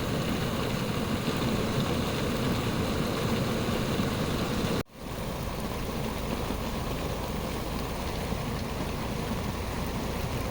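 Heavy rain falling on a vehicle, over the steady noise of the vehicle running on the road. The sound drops out for an instant about five seconds in.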